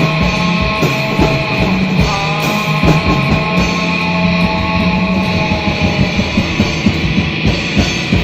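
Loud rock music: distorted electric guitar holding sustained notes over drums, the drum hits growing more prominent near the end.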